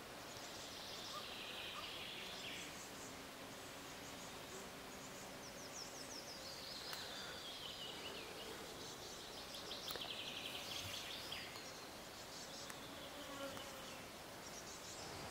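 Faint summer garden ambience: a flying insect buzzing, with birds singing three short trilled phrases, the middle one falling in pitch.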